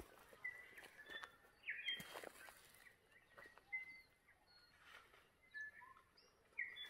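Faint birdsong in the bush: scattered short whistled notes and chirps at several pitches, with a few soft clicks like twigs or footsteps.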